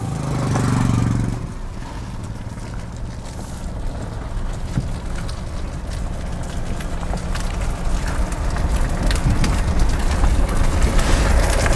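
Car tyre wrapped in rat glue traps rolling slowly on asphalt, with continuous crackling and ripping as the glue sticks to the road and peels away, a sound described as really weird and awful. A louder low hum comes in the first second, and the crackling grows louder toward the end.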